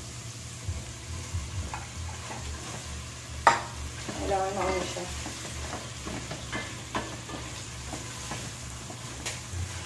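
Okra being stirred into sautéing ground meat in a pot with a long-handled spoon: a low frying sizzle with scraping and light clicks of the spoon against the pot, and one sharp knock about three and a half seconds in.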